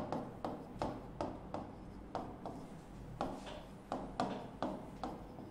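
A pen writing on a board: a string of short taps and scratches from the strokes, about three a second and unevenly spaced, as the words are written out by hand.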